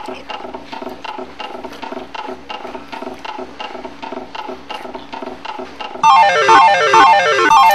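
Slot machine running with a fast, even mechanical clicking. About six seconds in, a much louder electronic jingle breaks in, made of quickly repeated runs of notes that each fall in pitch.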